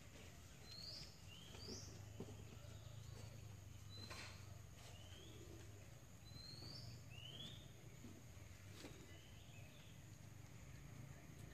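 Near silence with faint birds chirping in the background: short rising chirps every second or so, over a low steady hum, with two faint clicks.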